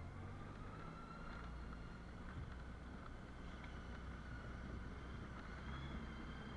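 Honda Gold Wing motorcycle engine running at low speed, a steady low hum.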